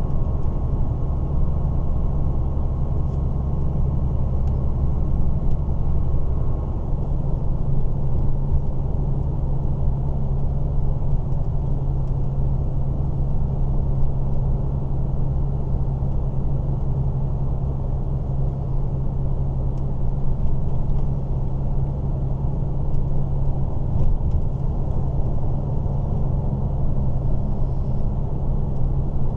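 DAF truck's diesel engine and road noise heard inside the cab while driving: a steady low drone with a constant engine hum.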